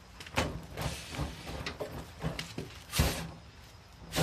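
Scattered knocks and clicks of things being handled, with a loud knock about three seconds in and another at the end.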